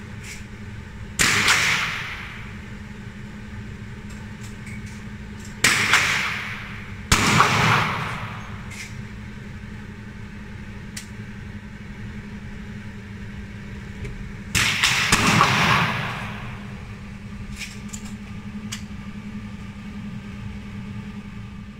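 .22 rimfire shots from a BSA Martini target rifle: four sharp reports about a second in, near six seconds, near seven seconds and near fifteen seconds, each ringing briefly off the walls of an indoor range. A steady low hum and a few faint clicks fill the gaps between shots.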